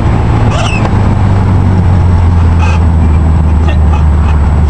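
VW Beetle's air-cooled flat-four engine and road noise droning steadily inside the car, with short high-pitched squeals from the speedometer several times, loudest about half a second in and again a little past the middle.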